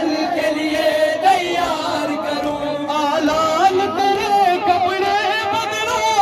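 A man chanting an Urdu noha, a Shia mourning lament, unaccompanied into a microphone. He sings one continuous wavering melody with long, ornamented notes.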